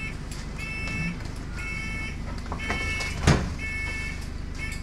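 Door warning beeper of an Alexander Dennis Enviro 200 Dart bus sounding over and over, about one half-second two-tone beep each second, over the low hum of the bus. A single sharp knock comes a little past three seconds in.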